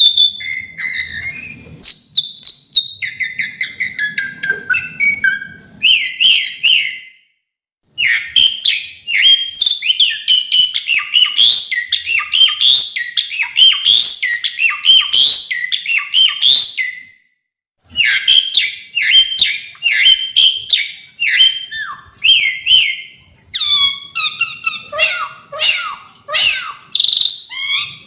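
Pied starling (jalak suren) singing a long, varied song of rapid whistles, chirps and rattling notes, with two short pauses about a quarter and two thirds of the way through.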